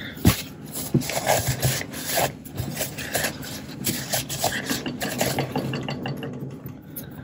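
Repeated rubbing strokes of a cleaner on the black plastic body of a Kodak Instamatic 300 camera, scrubbing off white oxidation.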